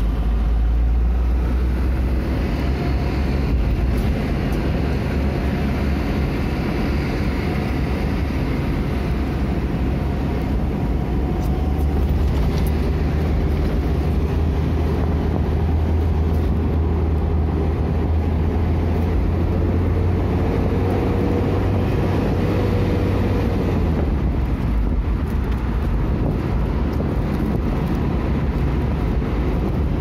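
Steady low rumble of engine and road noise inside a vehicle while driving along a road.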